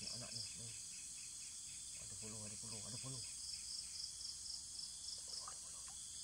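Insects chirping in a steady high-pitched chorus, with a rhythmic chirp repeating about four or five times a second.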